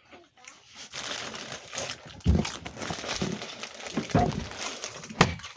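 Crinkling of a foil chip bag of Doritos being handled, with a few louder knocks about two, four and five seconds in.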